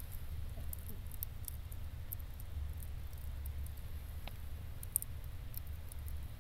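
Campfire burning low in a stainless fire-pit stand, its embers giving off scattered small crackles and ticks, with one sharper pop about five seconds in, over a steady low rumble.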